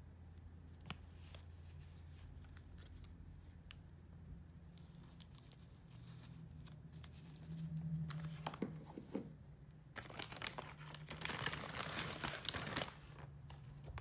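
Plastic crinkling and rustling as a doll is handled and set down on a crinkly plastic sheet. There are scattered light clicks at first, and a dense stretch of crinkling for about three seconds near the end.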